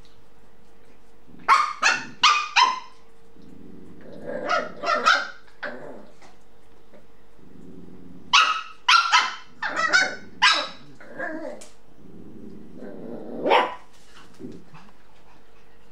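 Adult Shiba Inu growling and giving quick runs of sharp barks, warning puppies off the toothbrush he is guarding. A run of about four barks comes a second and a half in, and a longer run around eight to ten seconds in, with lower growling between them.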